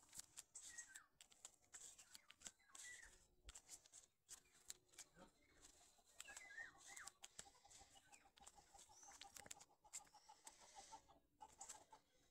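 Faint clucking and short calls from domestic hens, with a quick run of soft, even pulses in the second half, and scattered small clicks.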